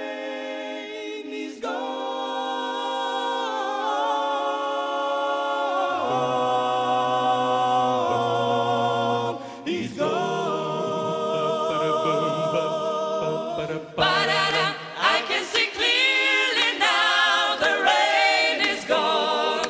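Background music: an a cappella vocal group singing held chords, a low bass voice coming in about six seconds in, the singing growing louder and more broken up in the last few seconds.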